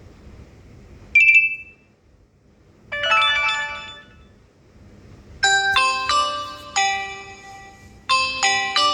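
Xiaomi Redmi 13C phone ringtones playing through the phone's speaker, one after another: a short high beep about a second in, a quick cluster of chiming notes around three seconds, then a melodic ringtone of bell-like notes from about five and a half seconds.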